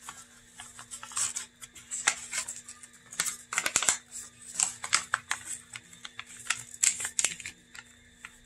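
A folded sheet of paper rustling and crinkling in short, irregular, crisp bursts as hands open it up and press it flat.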